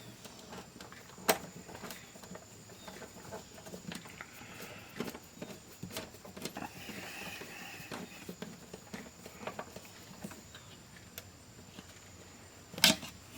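Light clicks, taps and rustling of small parts and tools being handled during reassembly of an 8-track player's power supply, with a sharp click about a second in and a louder click near the end.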